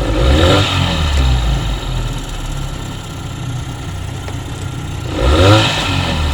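35 hp Mercury outboard motor running at a low idle, revved up briefly at the start and again about five seconds in, settling back down between.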